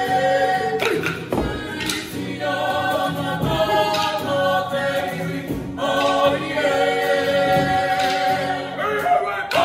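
Group of Māori men and women singing a song in harmony in long held phrases, with acoustic guitar accompaniment. There are a few sharp clacks from the tī rākau stick-game sticks the performers hold.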